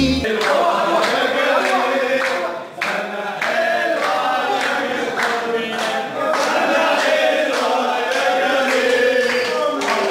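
A group of men singing a chant together, with hand clapping.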